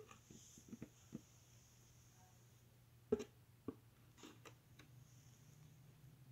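Near silence: a steady low hum of room tone with a few faint clicks and taps, the loudest two about three seconds in.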